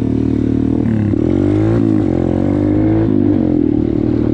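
Dirt bike engine running under way, the revs rising and falling several times as the throttle opens and closes.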